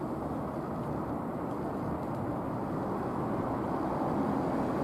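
Ex-JR 107 series electric train (Jōshin Electric Railway 700 series) moving past: a steady low rumble, with a faint hum rising above it near the end.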